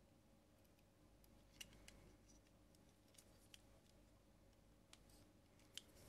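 Faint, scattered small clicks and light scraping of a plastic wall-socket body and stranded copper wire being handled, as the multi-strand wire is pushed into the socket's spring terminal. The wire doesn't go in easily.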